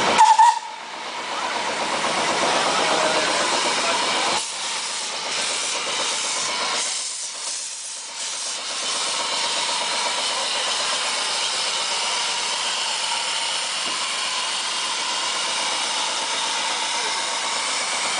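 Orenstein & Koppel narrow-gauge steam locomotive letting off steam in a steady hiss, with a brief loud burst about half a second in and the hiss dropping away briefly twice.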